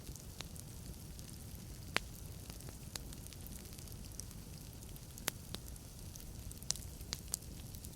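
Wood logs burning in a fireplace: irregular sharp crackles and pops over a steady low hiss and rumble of the fire, the loudest pops about two seconds in and again after five seconds.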